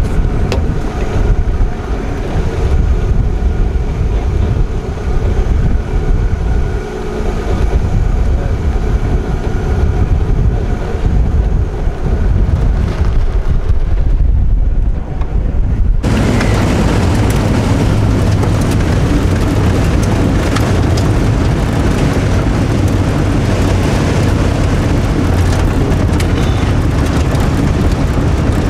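Holden EH station wagon driving on a dirt road, a steady engine hum under wind buffeting the microphone. About halfway through the sound changes abruptly to a louder, even rush of wind and road noise.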